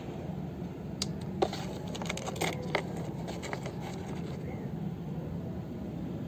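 A quick run of sharp clicks and light rattles over about two and a half seconds, the loudest near the start: small marbles knocking against each other and the hard plastic shell of a ride-on toy car as they are picked out. A steady low hum runs underneath.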